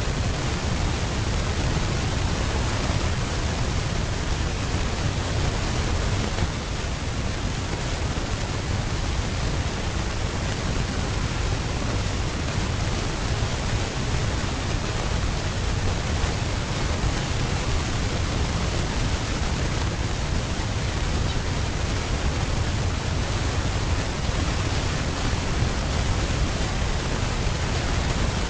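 Steady rushing noise with a low rumble underneath, even in level throughout, with no distinct calls or impacts.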